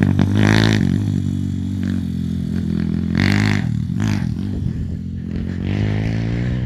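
Pit bike's Zongshen 160cc single-cylinder four-stroke engine being ridden hard, its revs rising and falling several times as the throttle is opened and closed.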